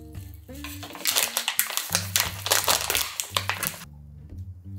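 Plastic crinkling and rustling, starting about a second in and lasting about three seconds, under soft background music.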